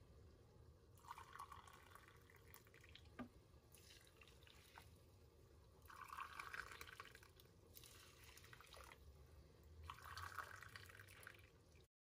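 Water being poured in about five short, quiet pours of a second or so each: a glass is filled from a jug and emptied over dry basmati rice in a pan.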